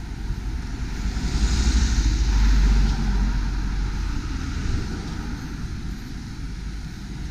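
Road traffic passing close by: car engine and tyre noise swells to its loudest about two seconds in, then fades, over a constant low rumble of wind on the microphone.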